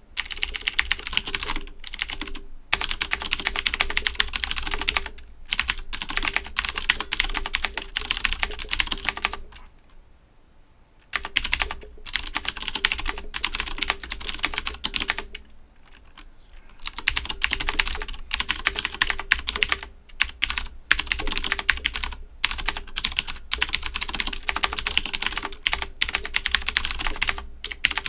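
Fast, continuous typing on a mechanical keyboard with Cherry MX Blue clicky switches (Owltech OWL-KB109BM II), a dense stream of sharp key clicks broken by short pauses and a near-silent gap about ten seconds in.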